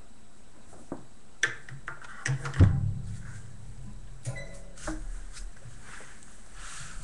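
Bearded collie puppies scuffling and wrestling on a raised metal-framed pet cot: scattered knocks and bumps, the loudest a heavy thump about two and a half seconds in, with a few lighter knocks a couple of seconds later.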